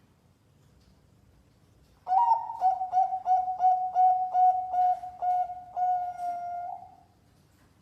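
Perkutut bangkok (zebra dove) cooing its song: a run of about ten short, evenly spaced coos, about three a second, ending in one longer drawn-out note. The phrase starts about two seconds in.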